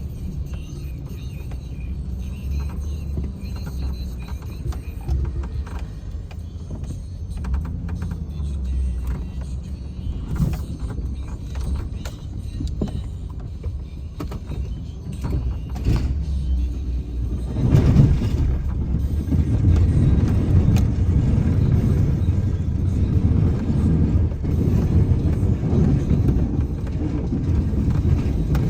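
A snow-clearing vehicle's engine running with a low, steady rumble. It grows louder and rougher about eighteen seconds in, as if under heavier load.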